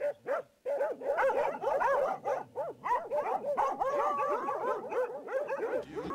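Several dogs barking in quick, overlapping barks that come nearly without pause from about a second in.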